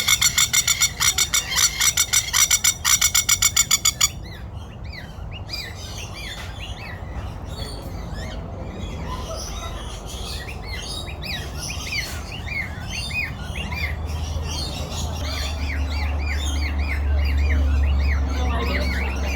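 A flock of aviary birds calling. A loud, fast series of harsh squawks runs for about the first four seconds, then many birds chirp and chatter over one another. A low rumble builds near the end.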